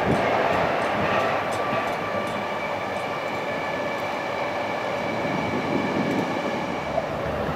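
JR East E231 series 500 Yamanote Line electric commuter train running over curved track and points: a steady rumble with a faint, steady high whine. There is a single light click near the end.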